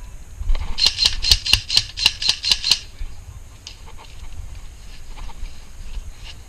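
Airsoft gun firing a quick string of about nine sharp cracking shots, about four a second, followed by a few fainter single shots.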